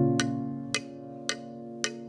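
Background music: sustained chords with a light percussive tick just under twice a second.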